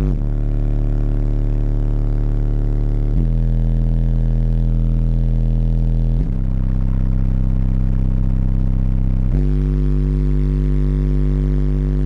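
Loud bass-heavy music through a 12-inch Kicker L7 subwoofer in a ported enclosure, heard inside the car's cabin. Long held low bass notes step to a new pitch about every three seconds.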